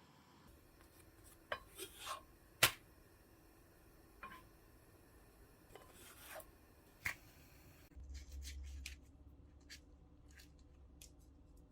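Scattered light clicks and knocks, the sharpest about two and a half seconds in. About two-thirds of the way through the background changes to a low steady hum.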